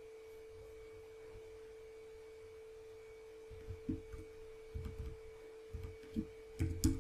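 A steady faint electrical hum at one pitch, with a run of soft computer keyboard taps and clicks over the second half as an address is typed into a browser.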